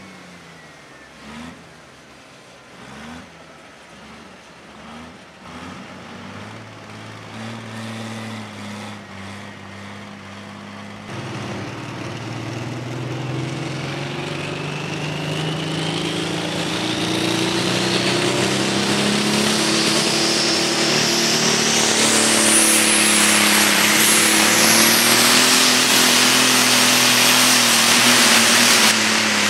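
Turbocharged diesel engines of John Deere light pro stock pulling tractors: first one blipped in short revs about every second and a half, then after a cut another pulling at full power, getting louder, with its turbo whistle climbing steadily in pitch.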